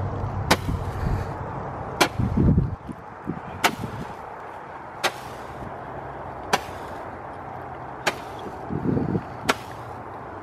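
Small Roman candle firing weak pops, about one every second and a half, seven in all.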